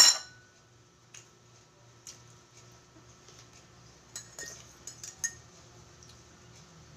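Light tableware clinks: a metal spoon knocking against a glass mug a few times, with a short ring, between about four and five seconds in. A louder clink of spoon or plate comes right at the start.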